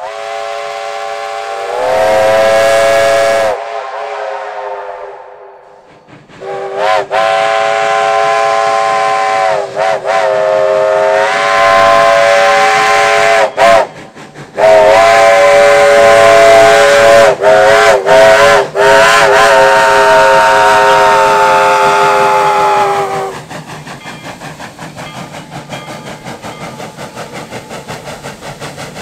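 Narrow-gauge steam locomotive's chord whistle. It gives a short blast about two seconds in, then a run of long blasts with brief breaks, each sliding up in pitch as the whistle opens. After the whistle stops near the end, steam hisses with a regular beat.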